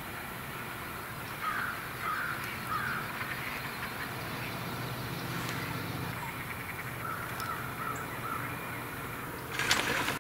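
Crows cawing: three caws about a second and a half in, and three fainter ones around seven seconds in. Right at the end, sudden loud bangs as shotgun fire begins.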